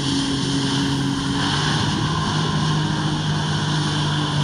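A jet ski's engine runs at steady high revs, pumping water up the hose to a flyboard. It makes a steady drone with a rushing hiss over it.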